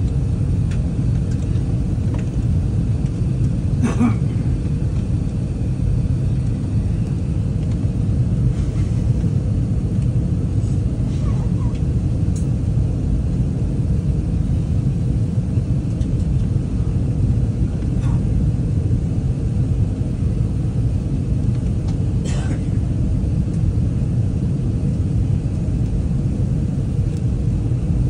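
Steady low rumble of engine and airflow noise inside an Airbus A380-800 passenger cabin, heard from the upper deck, with a few faint, brief clicks.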